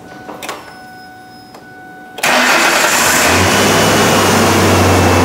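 A 2004 Ford Ranger's 4.0-litre V6 is started after a new ignition coil pack has been fitted. A couple of faint clicks come first. About two seconds in, the engine catches with a sudden loud start, then runs steadily.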